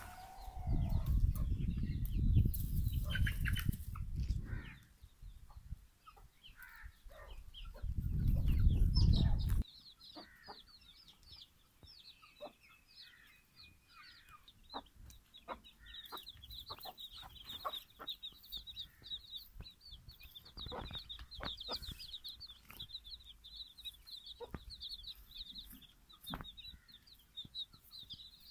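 Chicks peeping in a rapid, high-pitched stream from about ten seconds in, with a hen clucking now and then. Two stretches of loud low rumble fill the first ten seconds.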